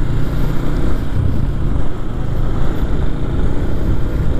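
Yamaha MX King 150's single-cylinder four-stroke engine running as the motorcycle rides along, mixed with a steady rumble of wind on the microphone.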